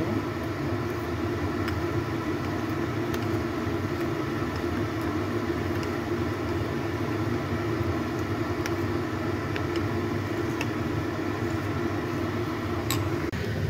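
Steady low mechanical drone, with a few faint clinks of a metal spoon stirring sauce in a ceramic bowl.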